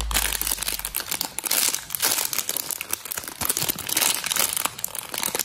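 Packaging crinkling and rustling in quick, irregular crackles as a parcel is wrapped by hand.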